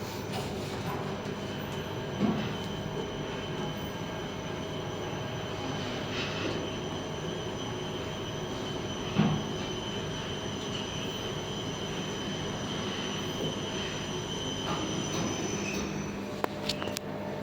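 Passenger lift car travelling in its shaft: a steady hum with a high, even whine from the drive, a couple of brief thumps along the way. Near the end the whine stops as the car arrives, followed by a few sharp clicks.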